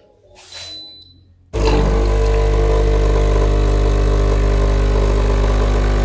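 Breville Barista Touch espresso machine's vibratory pump starting about a second and a half in and running with a steady, loud hum: the machine priming its water system as it powers up.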